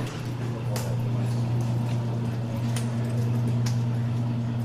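Prison cell-block ambience: a steady low hum over a background hiss, with a few faint, scattered clicks and knocks.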